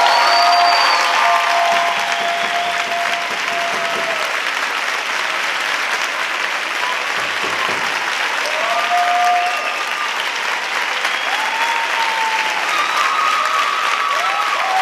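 Audience applauding and cheering, with repeated high shouts and whoops over dense, steady clapping.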